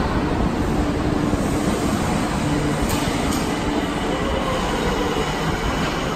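A Nagoya Municipal Subway Meijo Line 2000-series train pulling out of the platform and running away into the tunnel: a steady rumble of wheels and traction motors, with a couple of light clicks from the rails about three seconds in.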